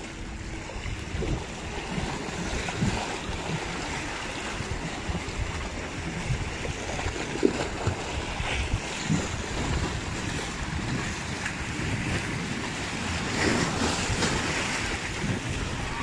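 Rough sea surf washing against the rocks, with wind rumbling on the microphone. A few short knocks stand out, the loudest about seven seconds in.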